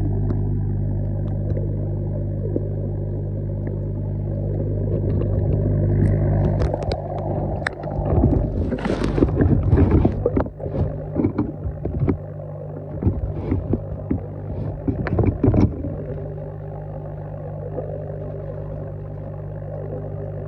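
Steady low hum of an aerator air pump, picked up underwater. From about six to sixteen seconds in, it is broken by irregular clicks, knocks and scraping.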